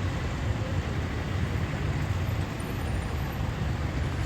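Steady street traffic noise: a continuous low rumble of passing vehicles with no distinct events.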